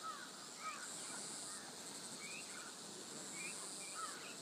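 Insects droning steadily at a high pitch, twice swelling louder for about a second, with short bird chirps scattered throughout.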